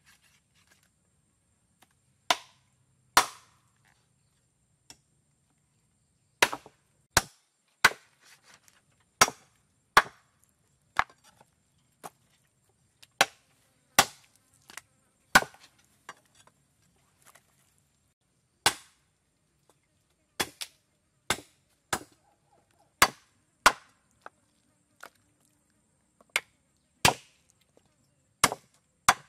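Meat cleaver chopping raw beef ribs on a thick wooden chopping block: about twenty-five sharp, irregular chops, roughly one a second, some of them louder blows with a short ring.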